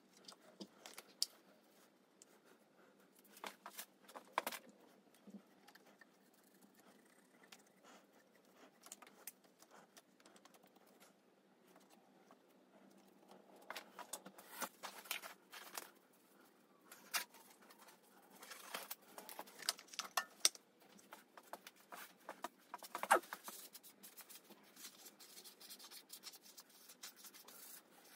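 Hand work in a motorcycle's engine bay: faint rustling and scraping of a cloth and parts being handled, broken by scattered sharp clicks and knocks of plastic and metal pieces. The loudest click comes about 23 seconds in.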